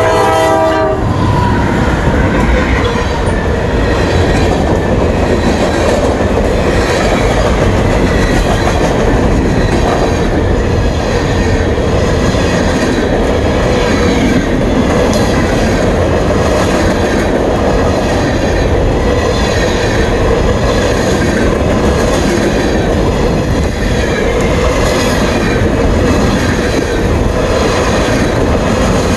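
A Norfolk Southern freight train passing close by at speed. A locomotive horn chord cuts off about a second in, then the cars roll past with a steady loud rumble and a rhythmic clatter of wheels over the rail joints, with some faint wheel squeal.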